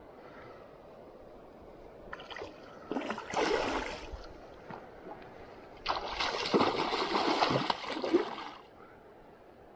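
A hooked Atlantic salmon thrashing at the surface close in, in two bouts of splashing, the second one longer.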